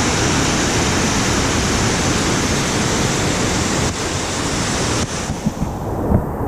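Waterfall's steady, loud rush of falling water. About five seconds in, the hiss drops away abruptly and gusts of wind buffet the microphone.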